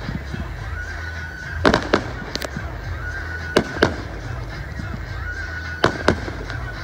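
1.3G display firework shells bursting in pairs, the two reports of each pair about a quarter second apart, three pairs in all about two seconds apart. A short honk-like tone repeats in the background between the bursts.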